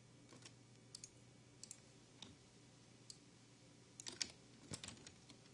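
Faint, scattered clicks of a computer mouse and keyboard, single ones at first and a quicker cluster near the end, over a low steady hum.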